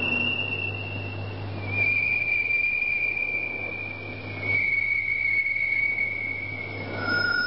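A series of long, pure whistling tones, each held a couple of seconds and each lower than the last, with a last, much lower tone near the end. A low steady hum runs beneath them.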